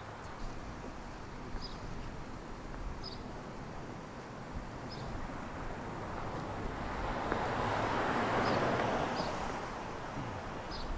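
A vehicle passing by on a street: its noise builds through the middle, peaks a little after halfway, and fades away near the end. Faint short high chirps come every second or two over steady outdoor background noise.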